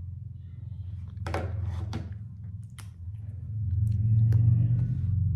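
A low, steady rumble that swells about four seconds in, with a few faint clicks.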